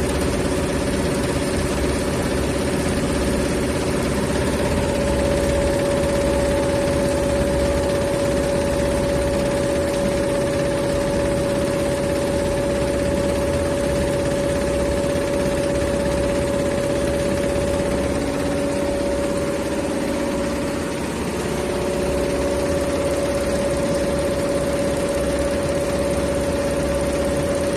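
Industrial embroidery machine running steadily, a continuous mechanical drone with a constant hum, dipping briefly in level about three-quarters of the way through.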